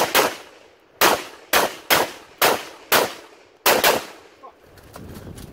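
Rapid semi-automatic shots from an AR-15-style carbine, about nine in four seconds, fired singly and in quick pairs, then a pause of about a second and a half.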